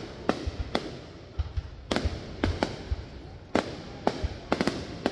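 Fireworks going off: about eight sharp, irregularly spaced bangs, two in quick succession near the end, over a low continuous rumble.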